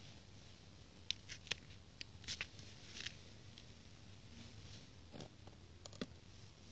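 Faint scattered clicks and light taps from hands handling a quadcopter and its radio transmitter. A few sharper clicks come near the end as the transmitter is picked up.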